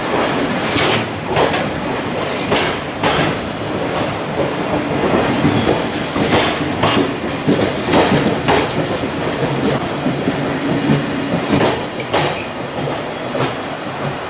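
Container wagons of a departing freight train rolling past, the wheels clacking over rail joints every half second or so above a steady rumble, with a faint steady hum through the middle.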